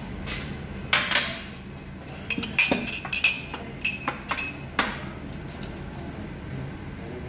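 Dishes, cups and cutlery clinking at a breakfast buffet: about ten sharp clinks and knocks in the first five seconds, a few ringing briefly, over a steady low hum.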